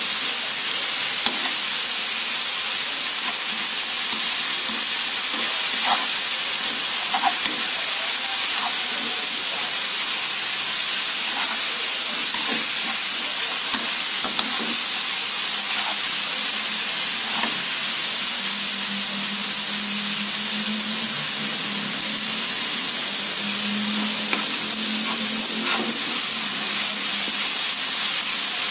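Minced lemongrass, garlic, shallots and onion sizzling steadily in hot oil in a nonstick wok, with a metal spatula scraping and clicking against the pan as it stirs them.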